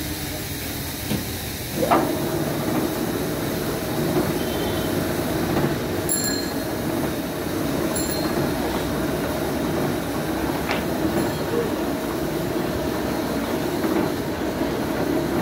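Large vertical band saw cutting into a big log in a sawmill, a steady mechanical drone with a held tone that starts sharply about two seconds in.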